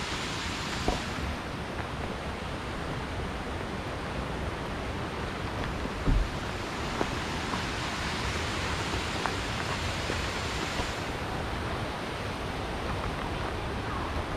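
Steady rushing of a river or waterfall, an even hiss with no letup, with a few faint ticks and a single short thump about six seconds in.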